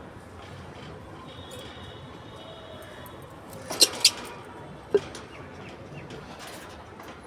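Pet lovebirds chirping: two short, sharp, loud chirps in quick succession about four seconds in, a shorter one a second later, and fainter twittering around them.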